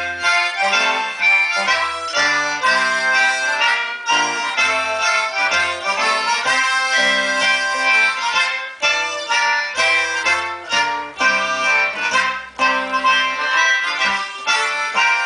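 Live folk brass-and-reed band playing an instrumental passage: trumpet and trombone over free-reed instruments, with held chords and a moving low bass line.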